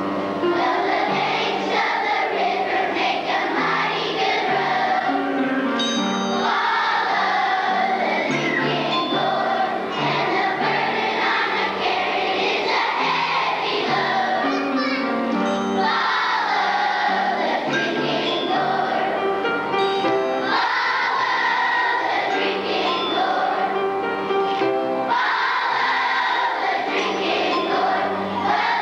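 Children's choir singing a song together over instrumental accompaniment.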